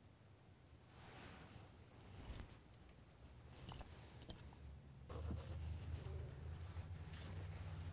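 Faint handling sounds of makeup tools: light rustling and a few small clicks and clinks, with a low hum coming up about five seconds in.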